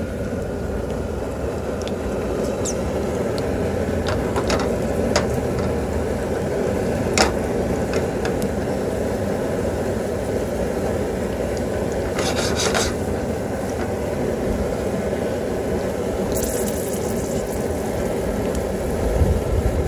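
Chopped garlic and red chilies sizzling steadily in oil in a frying pan, with a few scattered clicks and a brief sharper hiss near the end.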